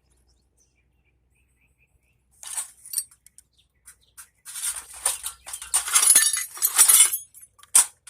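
Metal computer scrap clinking and rattling as parts and wires are pulled and handled, in short bursts, ending with a sharp click.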